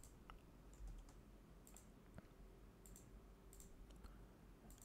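Near silence with a few faint, separate clicks of a computer mouse and keyboard.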